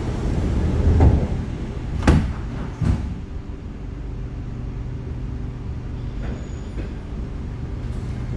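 Sliding doors of an SMRT C751B metro train shutting with two sharp knocks close together, after a swell of low rumble. The carriage's steady low running rumble follows as the train sets off.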